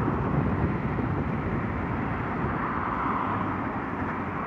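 Wind and road rush from riding a 2007 Honda CBR125 motorcycle, a steady noise that grows slightly quieter.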